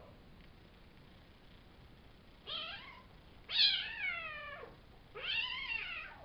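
Five-week-old Savannah kittens meowing: three calls that each rise and then fall in pitch. The first is short, and the second and third last about a second each, with the second the loudest.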